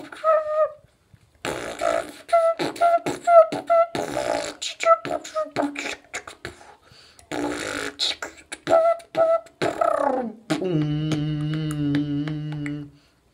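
Solo human beatboxing: mouth-made percussive kick, snare and hi-hat strokes mixed with short repeated hummed notes, with a brief pause about a second in. It ends in a held low buzzing vocal note lasting about two and a half seconds.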